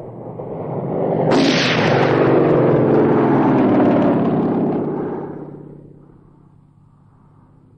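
A propeller aircraft's engine sweeps loudly past. It starts with a sharp crack about a second and a half in, then drones with a falling pitch and fades away over the next few seconds.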